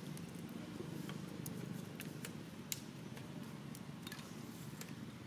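Faint scattered crackles and ticks of dry leaf litter as two young macaques tussle on it, over a steady low background hum.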